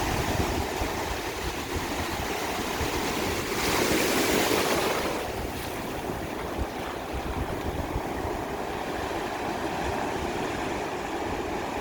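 Sea waves breaking on a beach as a steady wash, with one wave crashing louder about four seconds in and fading out over a second or so. Wind buffets the microphone with a low, uneven rumble.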